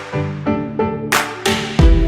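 Background music: pitched notes over a steady beat of sharp hits, with a heavy bass coming in near the end.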